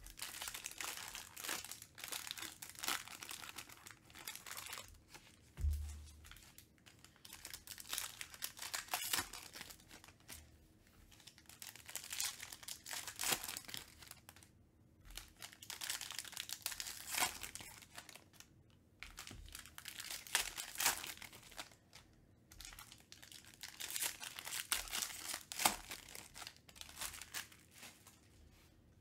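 Foil trading-card pack wrappers of 2021 Panini Chronicles Baseball being crinkled and torn open by hand, in bursts with short pauses. There is a dull thump about six seconds in.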